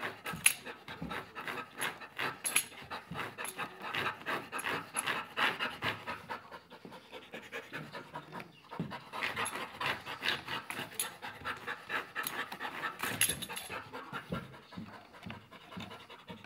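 Golden retriever panting rapidly and steadily, easing off for a couple of seconds midway. Scattered sharp clicks and scuffs come through as it paws at a toy.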